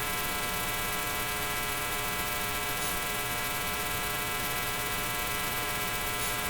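Steady electrical mains hum: an unchanging buzz made of many evenly spaced tones, with no other sound over it.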